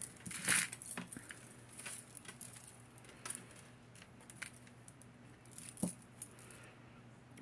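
Metal jewelry chains and beads clinking and jingling as they are picked up and handled, in scattered light clicks, the loudest about half a second in.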